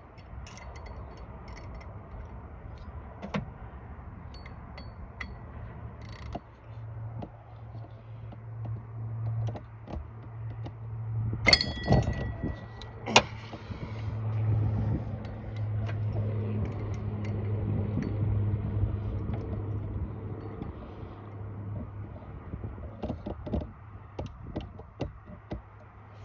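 Ratchet and end wrench working the water pump pulley bolts: scattered small metallic clicks, and a loud ringing clank of metal on metal about halfway through, followed shortly by a second sharp hit. A steady low hum runs underneath.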